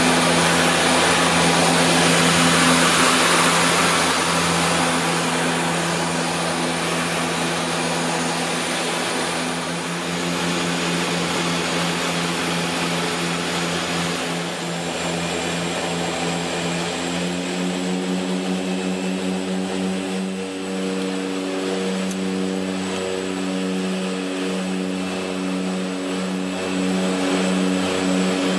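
Propeller engines of a small twin-engine airplane droning steadily, heard from inside the cockpit. A loud rushing noise eases after about four seconds, and past the middle the engine tone shifts, with a pulsing beat between the propellers.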